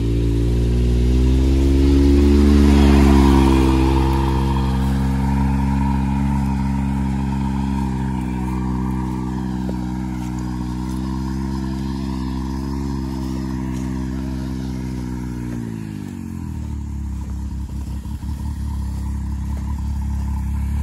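Can-Am Maverick X3's turbocharged three-cylinder engine revving up as the side-by-side pulls away, then running steadily. About fifteen seconds in the engine drops in pitch as it comes off the throttle, and runs low with some rattling.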